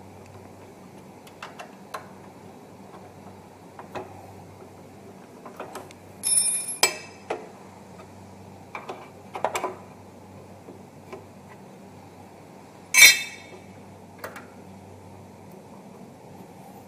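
Metal parts of a stainless-steel conveyor frame being adjusted and tightened by hand: scattered light clicks and taps, a ringing metallic clink about six seconds in and a louder ringing clank about thirteen seconds in, over a low steady hum.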